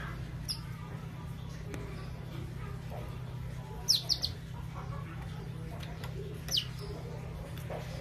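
Young crossbred canary giving short, high, falling chirp calls: one near the start, a quick run of three about four seconds in (the loudest), and another a little after six seconds. A steady low hum runs underneath.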